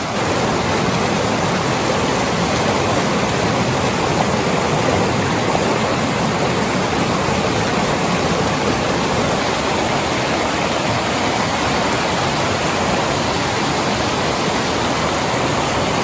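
A rocky waterfall cascade: white water rushing steadily over broad rock steps.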